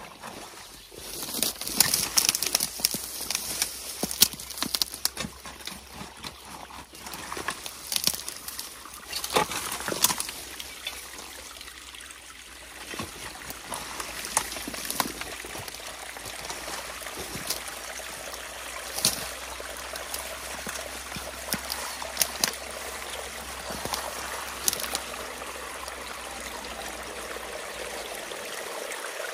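A potato rake tearing into a beaver dam of mud and packed reeds, with crackles, knocks and splashes for the first twelve seconds or so. Then water trickling and running steadily through the opened dam as it drains.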